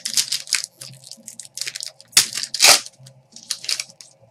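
Foil trading-card pack wrappers crinkling and tearing as packs are ripped open by hand: a run of short, irregular rustles, loudest a little past two seconds in.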